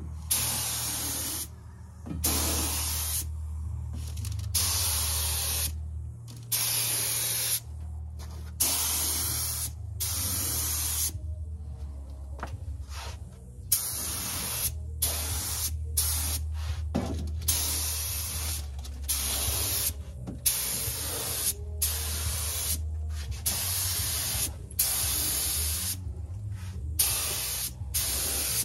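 Gravity-feed air spray gun spraying epoxy primer onto bare sandblasted steel wheels. Its trigger is pulled and released over and over, giving many short bursts of hissing air, each a second or so long, over a steady low hum.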